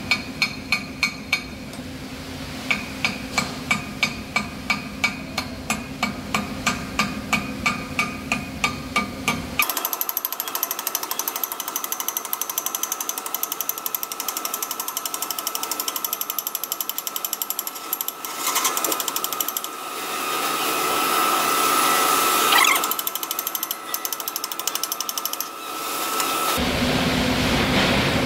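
Steel chipping hammer striking a flux-cored weld bead on steel plate to knock off slag: sharp, ringing metal strikes about two to three a second, over a steady low hum. About ten seconds in the strikes stop. A hiss with a steady high whine follows and grows louder near the end.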